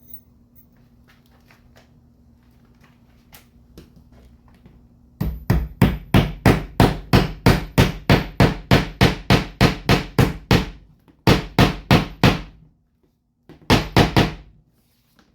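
Hammer tapping a cable staple over 12-2 Romex into spongy plywood: a long even run of quick blows, about four or five a second, starting about five seconds in, then two shorter bursts of blows near the end.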